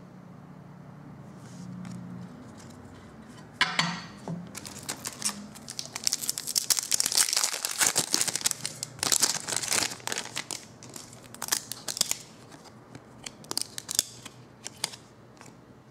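A hockey-card pack's wrapper is torn open and crumpled by hand, starting sharply about three and a half seconds in and crinkling densely for several seconds. Lighter rustles and clicks follow as the cards are handled.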